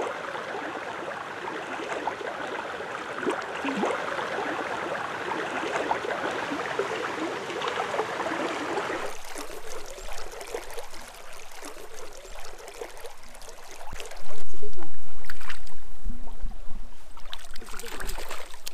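River current rushing around a wading angler. After an abrupt change it turns quieter, with scattered splashes as a hooked fish thrashes at the surface on the line. A loud burst of rumbling noise hits the microphone about three-quarters of the way through.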